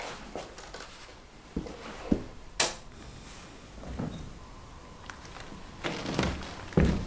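A series of separate knocks and clunks: two soft thuds, then a sharp click about two and a half seconds in, and two heavy thumps near the end, the last the loudest.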